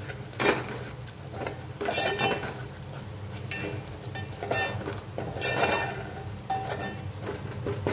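A steel spoon stirs and scrapes a thick masala paste frying in a metal pot, with about five separate scraping strokes that ring against the metal.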